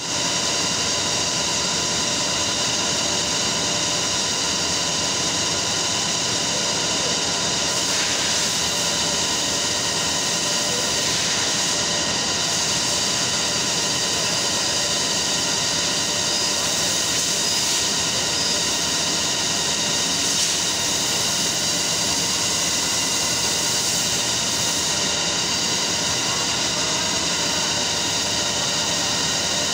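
Steady drone of running textile mill machinery: a constant noisy rush with several fixed whining tones over it.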